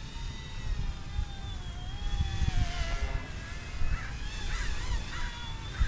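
Toy RC helicopter's motor and rotor whine, its pitch wavering with throttle, dipping a little past halfway and climbing back. Under it, wind rumbles on the microphone.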